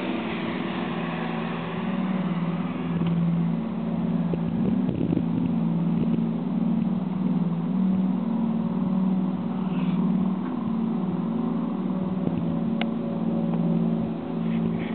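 A steady low mechanical drone that wavers slowly up and down in pitch. It is the strange background noise at a railway station, and its source is unidentified.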